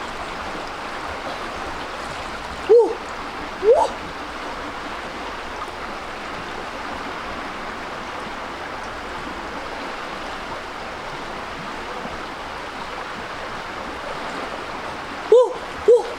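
Stream water running steadily. Two pairs of short pitched calls cut through it, a pair about three seconds in and another near the end.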